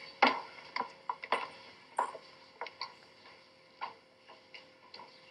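Shoe heels clicking on a hard floor in an irregular run of sharp knocks that grows fainter.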